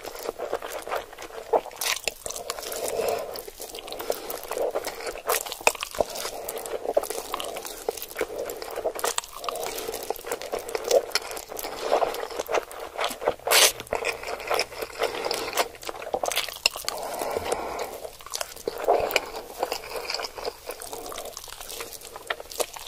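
Slurping and chewing of saucy instant noodles eaten with chopsticks: wet sucking slurps and chews with many sharp lip smacks and clicks, coming in repeated mouthfuls.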